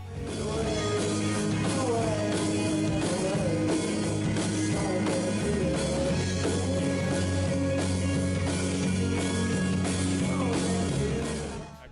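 Rock music: electric guitar and a steady drum beat with a voice singing, cutting off near the end.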